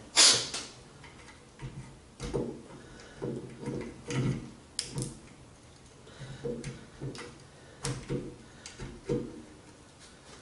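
Irregular clicks and light knocks of metal parts being handled as the Minn Kota trolling motor's armature and lower-unit housing are fitted back together, with one sharp knock at the start.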